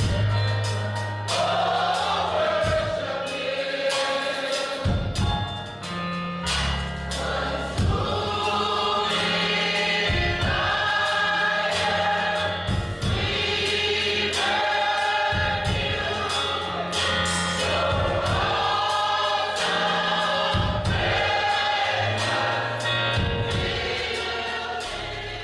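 Gospel choir singing with a band: bass, drums and keyboard under many voices, fading out near the end.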